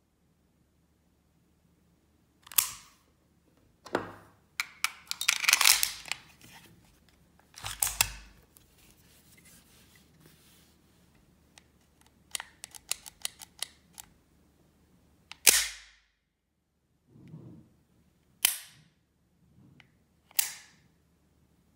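Heckler & Koch P7 M13 pistol being worked by hand: sharp metallic clicks and clacks from its squeeze-cocker grip lever and action, mostly single clicks a few seconds apart, with a busy flurry about five seconds in and a quick run of light clicks around the middle.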